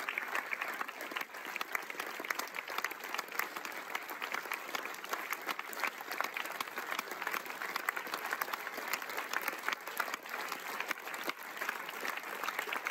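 Large audience applauding: dense, steady clapping that carries on without a break.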